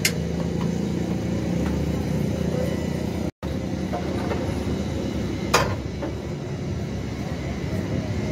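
A motor vehicle engine running steadily with a low drone. There is a sharp knock about two-thirds of the way through, and the sound cuts out for an instant a little before halfway.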